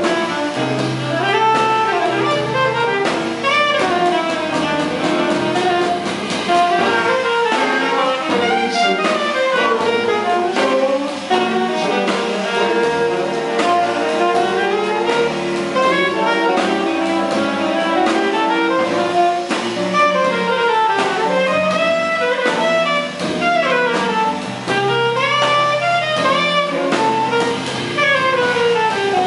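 Jazz saxophone solo, an alto sax playing running melodic lines over piano, upright bass and drum kit.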